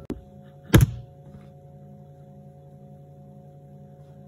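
A short click, then a single loud thump just under a second in, over a steady low hum with a few faint steady tones.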